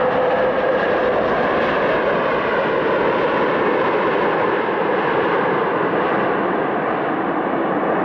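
Steady jet airliner engine and airflow noise heard from inside the passenger cabin, a loud even rush with a faint tone that fades about a second in.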